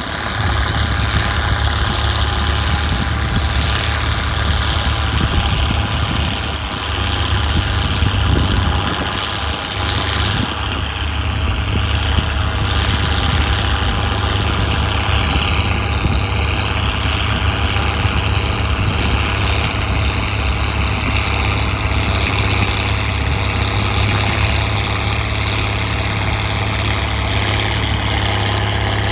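Straight-piped Case IH 1056XL tractor's six-cylinder diesel engine running steadily, with a loud open-exhaust note.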